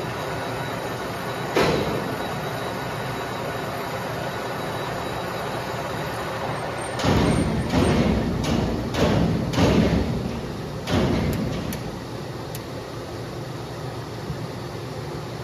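Heavy-machining workshop noise around a lathe: a steady running noise with one sharp knock about a second and a half in, then a cluster of about six heavy, ringing clanks over the middle of the stretch.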